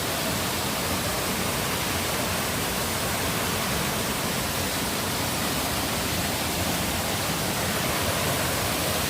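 Waterfall: water falling from a height, a steady, even rush.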